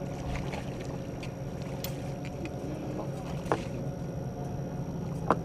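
Boat's outboard motor running steadily at trolling speed, with a few light clicks and two brief knocks of tackle or gear being handled while a fish is fought on the rod.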